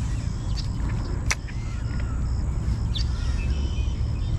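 Steady low outdoor rumble with a few faint bird chirps and one sharp click about a second in.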